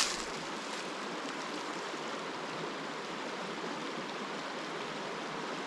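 Steady rushing of a mountain trout stream's flowing water, even and unbroken.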